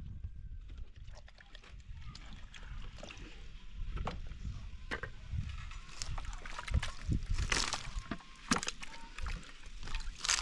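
Water sloshing and splashing in a plastic basin as tomatoes are washed by hand, with scattered small knocks and clatters from handling the fruit and plastic containers. Two louder splashes come in the second half.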